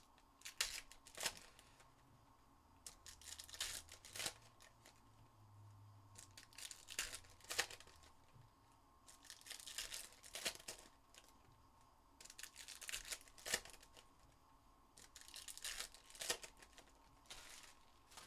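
Foil trading-card pack wrappers being torn open and crinkled by hand, with short crackles every couple of seconds.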